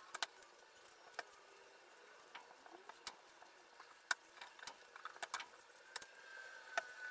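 Wooden strips and clamp bars being handled and set down against each other: light, irregular clicks and knocks of wood on wood, about a dozen over the stretch.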